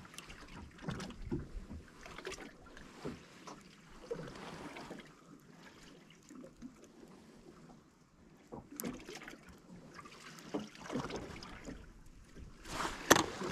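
Quiet small-boat sounds on calm water: faint lapping of water against the hull, light wind on the microphone, and scattered small knocks and clicks, with one sharper knock near the end.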